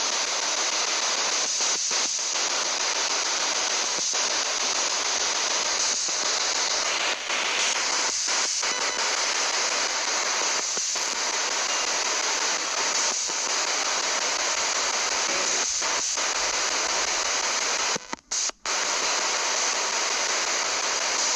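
Spirit box sweeping through radio stations: a steady hiss of radio static broken by short dropouts every second or two, with two brief cuts to near silence near the end.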